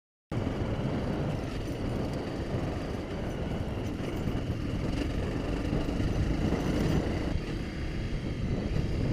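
Honda CRF250 Rally motorcycle riding along a dirt track, its single-cylinder engine running steadily under a heavy rumble of wind and road noise. The sound cuts in suddenly a moment in.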